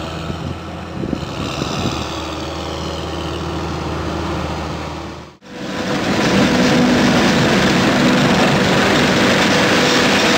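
John Deere 6930 tractor pulling a trailer, its engine running steadily at a low hum. About five seconds in this gives way to a louder, denser mechanical noise with a steady whine: a New Holland FX40 forage harvester working alongside an Ursus 4514 tractor, chopping maize and blowing it into the trailer.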